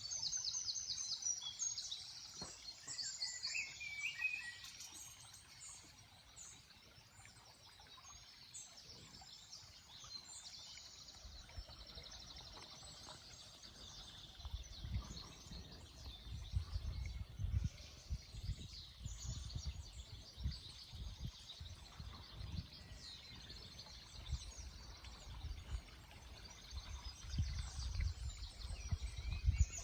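Wild birds singing, with many quick high chirps and trills overlapping. A low, irregular rumble joins in from about eleven seconds in.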